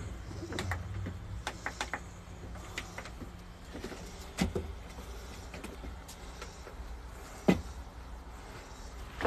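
Steady low machine hum with scattered clicks and knocks from a handheld phone being jostled. The loudest is a sharp knock about seven and a half seconds in.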